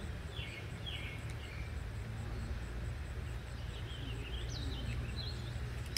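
Birds calling outdoors: two short down-slurred notes near the start and a quick run of chirps a little after four seconds in, over a steady low rumble.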